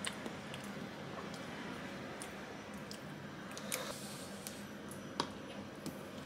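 Light clicks and taps of a spoon and chopsticks against plastic and paper food cups, with soft squishing of pudding and noodles, over a steady faint hiss. The sharpest click comes about five seconds in.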